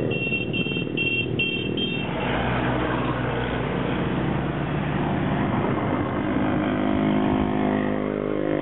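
A line of motorcycles, Filipino motorcycle-sidecar tricycles and cars driving past one after another, engines running over road noise. A rapid, evenly repeated high beeping sounds for the first two seconds.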